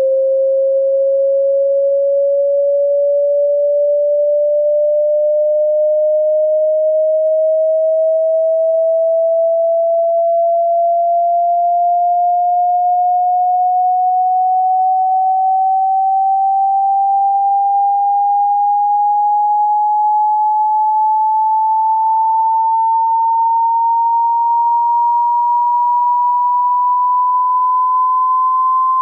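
A single pure sine tone from an online hearing-test frequency sweep, rising slowly and smoothly in pitch by about an octave at a constant, loud level.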